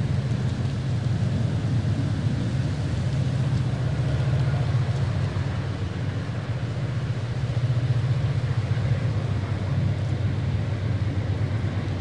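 A train's engine runs with a steady low rumble under a continuous rushing noise of wind.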